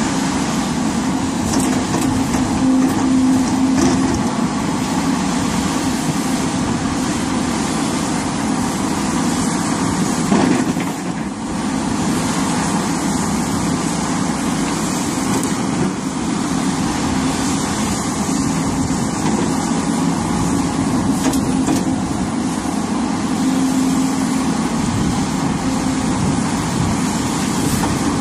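Hidromek HMK300LC-3 crawler excavator's diesel engine running steadily under working load while digging, with a brief dip in level about eleven seconds in.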